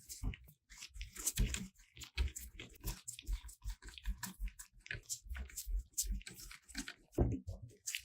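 Many small, irregular clicks, knocks and scrapes of hard parts being handled in quick succession, as when working on a laptop's plastic casing and components.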